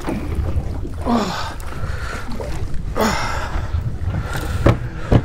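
Steady low rumble of a small fishing boat on the water, with two brief excited cries about a second and three seconds in and a sharp knock near the end.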